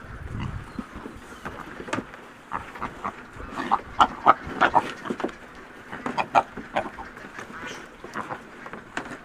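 Several pigs grunting and squealing in short calls as they jostle to eat at a feed trough, with a thick cluster of calls about four seconds in and another around six.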